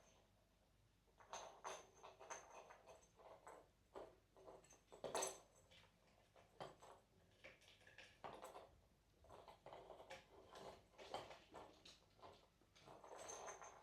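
Faint scattered rustling and light taps from kittens moving about and playing with toys, with one sharper tap about five seconds in.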